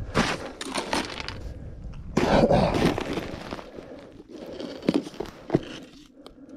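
Boots crunching in packed snow as a person steps up to an ice-fishing hole and kneels, with a longer stretch of snow crunching and scuffing about two seconds in. Two sharp knocks follow near the end as the wooden tip-up is taken hold of.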